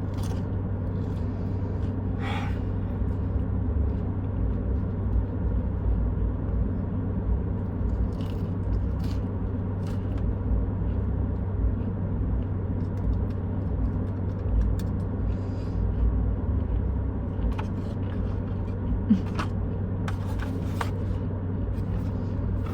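Car engine idling, a steady low rumble heard from inside the cabin, with a few brief soft clicks over it.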